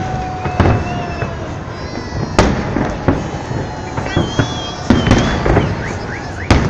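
Fireworks salute: loud bangs at irregular intervals about a second apart, each followed by a rumbling tail. Thin, wavering high whistles sound between the bangs over a steady background hubbub.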